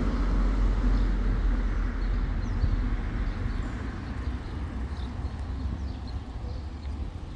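Cars driving past and away along a street, their engine and tyre noise slowly fading.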